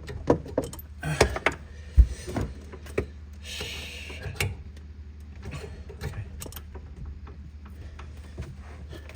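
Scattered clicks and knocks of pipe fittings and tools being handled, the sharpest about two seconds in, with a short hissing rustle a second or two later, over a steady low hum.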